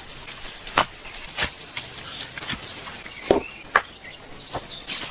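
About five sharp knocks at uneven intervals, like chopping strokes, over faint outdoor background noise.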